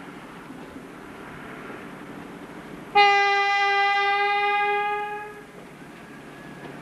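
A locomotive's warning signal sounded once: a single steady, high tone that starts sharply about three seconds in, holds for about two and a half seconds and fades away.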